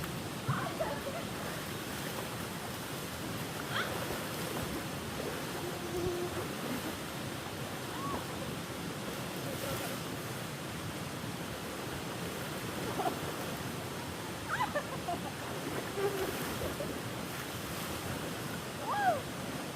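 Steady rushing of running water, with a few short high chirps scattered through it.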